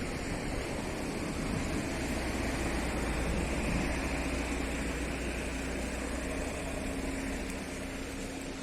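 A vehicle engine running steadily, with a low hum.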